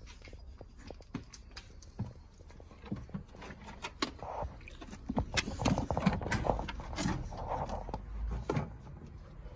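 Puppies playing close to the microphone: scattered small taps, scuffs and knocks, getting busier and louder from about four seconds in as a puppy noses right up against the phone.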